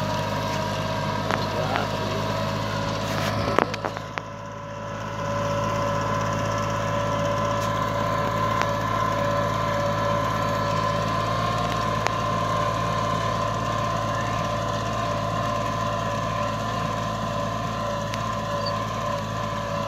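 Tractor engine running steadily under load as it pulls a seed drill through tilled soil, with a few sharp knocks and a brief dip in loudness about four seconds in.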